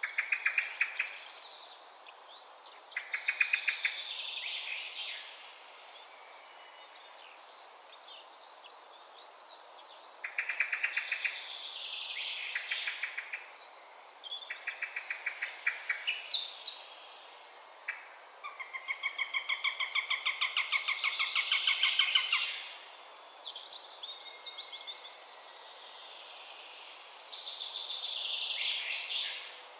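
Eurasian sparrowhawk calling in bouts of fast chattering notes, each run lasting one to three seconds, with short pauses between. A faint, very high thin note repeats about once a second in the background.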